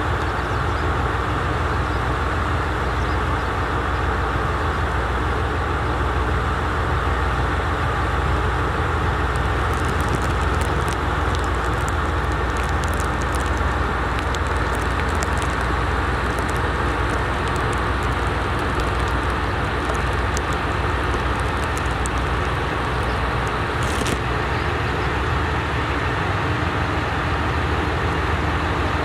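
JR West Kiha 187 series diesel multiple unit running slowly along the track, a steady diesel rumble. Scattered light ticks come through in the middle, with one sharper tick near the end.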